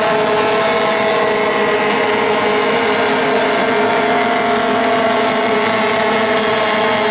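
Outboard racing hydroplanes running flat out, their outboard engines making a loud, steady whine that holds its pitch.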